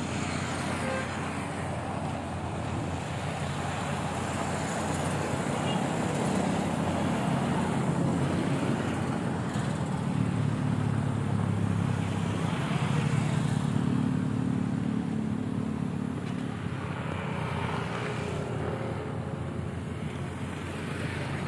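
Outdoor road-traffic noise: motor vehicle engines running steadily, with a low engine rumble that swells about six seconds in and fades after about sixteen seconds.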